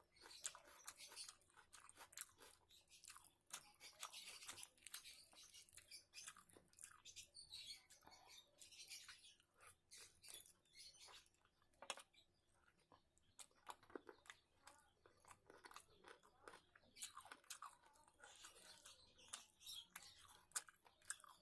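Quiet, close-miked chewing of a rice, curry and salad meal: irregular wet mouth clicks and smacks with soft crunches.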